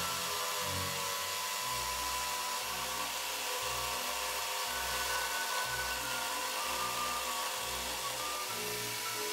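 Jigsaw with a tungsten-carbide grit blade cutting through a ceramic wall tile, running steadily throughout, mixed with background music that has a steady low beat.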